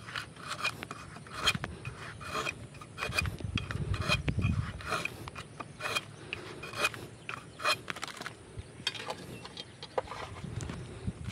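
Curved toddy-tapping knife shaving the cut tip of a palmyra palm's flower stalk: a run of short, irregular scraping strokes, several a second. The fresh slices reopen the cut so the sap keeps dripping into the clay pot.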